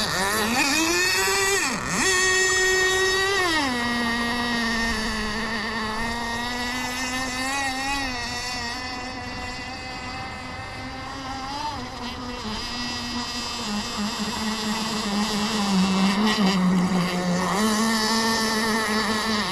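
Two-stroke nitro glow engine (Kyosho GT32 marine) of an RC boat running under way, set rich and loud. Its note revs high for the first few seconds, with a quick dip and recovery, then drops to a lower, steadier pitch about four seconds in, with a brief further dip near the end.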